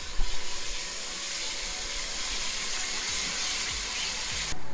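Spicy chili paste sizzling as it fries in hot oil in a pot, stirred with a spoon, with a few knocks near the start. The steady sizzle cuts off suddenly just before the end.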